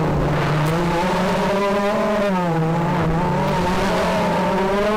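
FPV racing quadcopter's electric motors and propellers whining, heard through the onboard camera, the pitch sliding up and down with the throttle.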